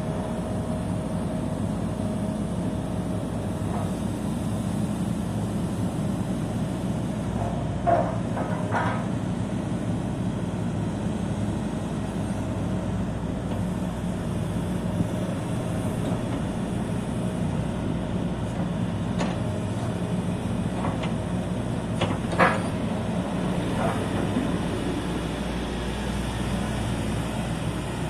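Hitachi ZX140W-5B wheeled excavator's diesel engine running steadily while the boom, arm and bucket are worked and the upper structure swings. A few short clanks come through: two around eight to nine seconds in, and two later, the loudest at about twenty-two seconds.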